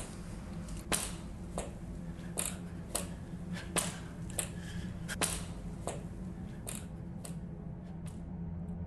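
A series of sharp, irregular clicks, about one every half second, over a steady low hum; the clicks stop near the end.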